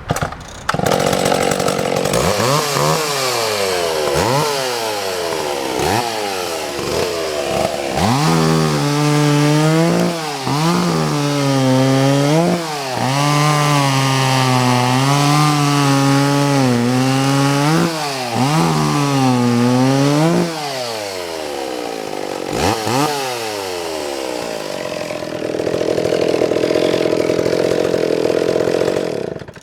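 Vintage McCulloch Timber Bear two-stroke chainsaw running, its throttle blipped again and again so the engine revs up and drops back, held high with short dips through the middle, then settling back to a lower, steadier run near the end.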